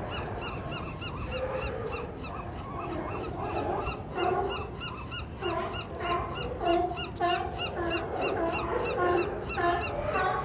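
Sea lions barking and honking, several overlapping calls that grow louder about halfway through, over a steady string of quick, high chirps about three a second.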